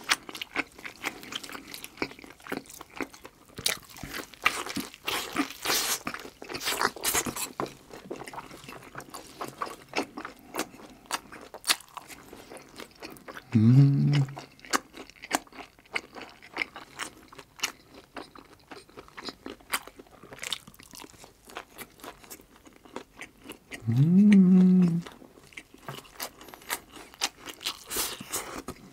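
A person chewing braised pig's trotter (jokbal) close to a clip-on microphone, with many small mouth clicks and smacks. Twice, about 14 and 24 seconds in, a short hummed "mm" of enjoyment rises in pitch.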